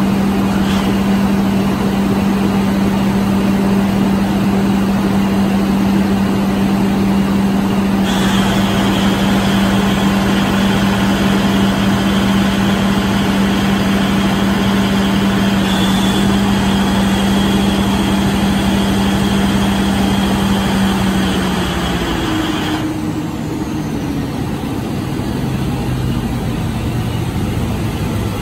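Large 4000-series diesel generator engine running at its 1500 rpm governed speed while load is applied. A high whine comes in about 8 seconds in. About 22 seconds in, the engine's steady note drops in pitch as a heavy load pulls the speed down toward 1380 rpm, and the whine cuts off soon after.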